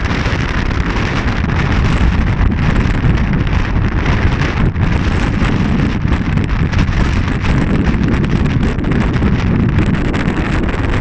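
Strong wind blowing over the microphone, a loud, steady rush with its weight in the low end.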